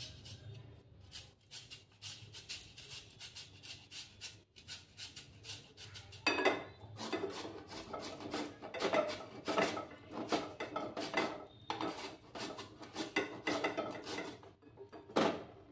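A peeled raw potato being grated on a flat handheld metal grater: repeated rasping strokes, about two a second, fainter at first and louder from about six seconds in.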